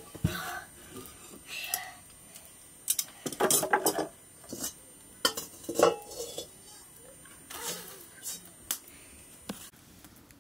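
Metal cookware being handled: a black wok and pots clanking and scraping, metal on metal, as the wok is set onto an iron ring stand over a wood fire. A string of separate clanks, with a cluster of louder ones about three and a half seconds in and another near six seconds.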